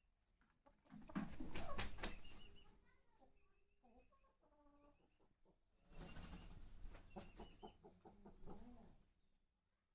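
Aseel chickens clucking with short calls, among two louder stretches of noise about a second in and again past the middle.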